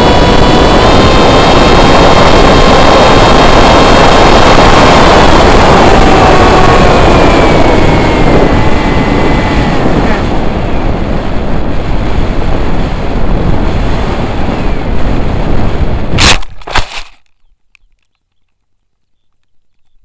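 The electric motor and propeller of a foam FPV flying wing whine steadily over wind rush, heard from the onboard camera. About six seconds in the pitch slides down as the throttle comes off, and the motor stops at about ten seconds, leaving only wind as the wing glides. About sixteen seconds in come a few sharp knocks as the wing hits the ground and lands in grass.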